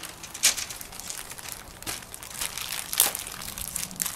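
Plastic packaging crinkling and rustling as it is handled, most likely the bag of rubber bands being opened, with two sharper crackles about half a second and three seconds in.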